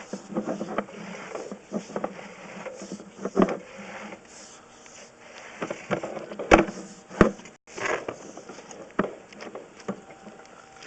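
Sewer inspection camera head and its push cable knocking and scraping against the inside of a vent pipe as the camera is pushed upward, giving irregular knocks with two sharper ones about a third and two thirds of the way through.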